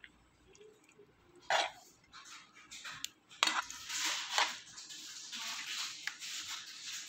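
Two sharp clinks of a utensil against a pan, then a few seconds of steady scraping and rustling as chicken pieces are moved around in the pan.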